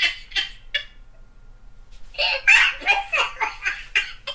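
A man laughing: a few short bursts at the start, then a longer run of rapid laugh pulses from about halfway through.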